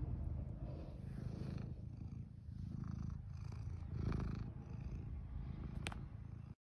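Kitten purring close to the microphone, a low rumble that swells and eases in waves, with a small click just before it cuts off suddenly.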